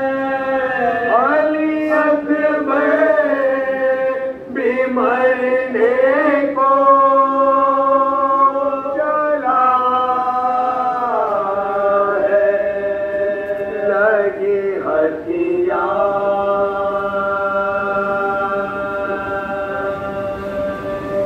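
A group of men chanting a Shia Muharram lament (noha) unaccompanied into a microphone, holding long drawn-out notes that slide in pitch between phrases.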